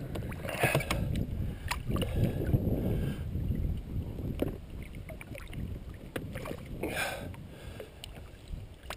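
Water sloshing and splashing around a landing net holding a large musky, with scattered sharp clicks and splashes as hands work the lure's hooks free.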